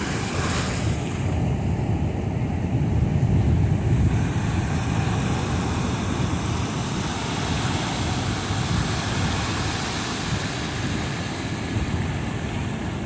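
Ocean surf breaking and washing up a sandy shore in a steady rush, with wind rumbling on the microphone, loudest a few seconds in.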